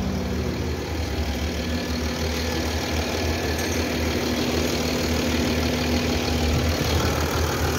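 Mercedes-Benz V6 diesel engine idling steadily.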